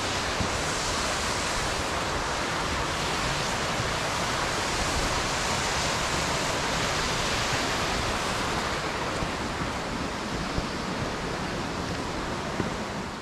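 A steady, even rushing noise that holds at one level throughout, with no distinct events in it.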